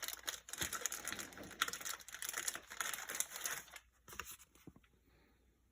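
Packaging crinkling and rustling in irregular bursts with small clicks as a lighter box is unwrapped, stopping about four seconds in apart from a few last clicks.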